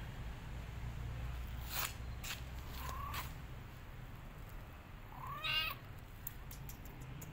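Domestic kitten meowing twice: a short, faint meow about three seconds in, then a louder meow about two seconds later. A few sharp clicks can be heard before and after the meows.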